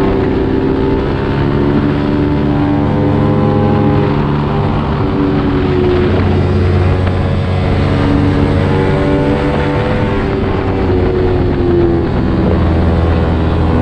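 Kawasaki Z250 motorcycle engine through an aftermarket SeaPro muffler, under way with the revs rising and falling through the gears and corners; the revs drop off about twelve seconds in and then pick up again.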